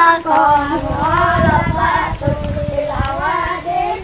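A child's voice singing a melodic chant, wavering and breaking into short phrases.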